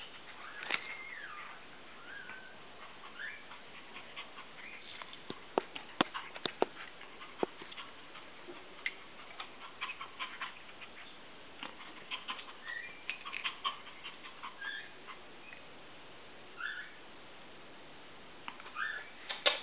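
Miniature Pinscher giving short, high whimpers now and then, with scattered sharp clicks of claws on a tile floor.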